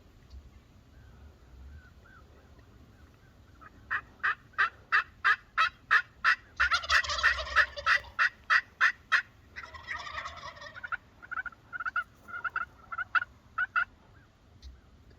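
Wild turkey toms gobbling at close range. A run of sharp repeated calls starts about four seconds in, with two dense rattling gobbles at about seven and ten seconds, then smaller repeated notes that die away.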